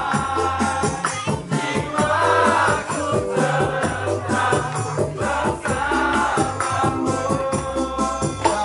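A song with a sung vocal over a bass line and a steady beat with shaker-like percussion.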